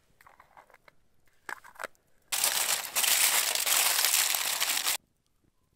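Aluminium foil crinkling loudly for about three seconds as a foil packet of salmon is folded and pressed closed, then stopping abruptly. Before it, a few faint light taps and rustles.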